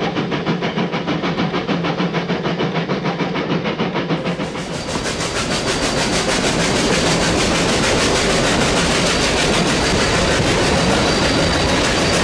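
Narrow-gauge steam locomotive under way, heard from the cab: its exhaust beats in an even, quick rhythm. About four seconds in the sound changes to the steady running noise and clatter of the train rolling along the track, heard from a carriage.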